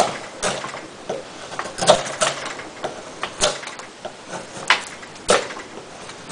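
Benchmade folding knife with an S30V steel blade shaving a softwood post: about six hard strokes, each a sharp scraping crack as the blade bites and a wood shaving comes off with little effort.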